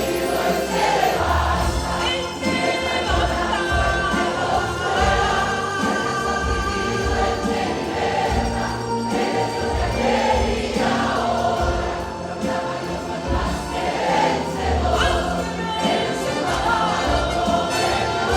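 Church choir singing a Spanish worship song live with band accompaniment, a steady pulsing bass beneath the voices.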